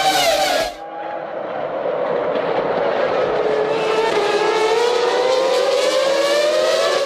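Formula One cars' V10 engines at high revs. Near the start one engine note falls away in pitch and level; then another engine's note dips and climbs steadily in pitch as the car accelerates, cutting off suddenly at the end.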